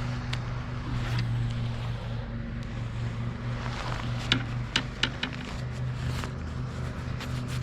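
A steady low mechanical hum, like a small motor running, with scattered sharp clicks over it; the hum stops shortly before the end.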